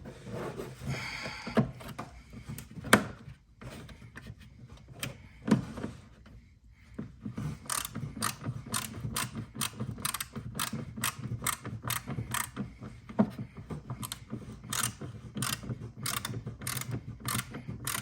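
Ratcheting hand tool clicking in a steady rhythm, about two to three clicks a second, driving a screw to fasten a rock guard. A few separate knocks and handling sounds come in the first seconds.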